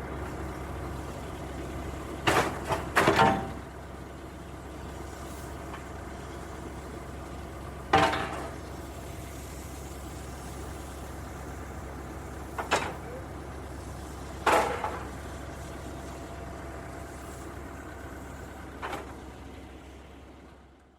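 Excavator engine running steadily, with sharp knocks from the working machine every few seconds, several close together about two seconds in. The sound fades out at the end.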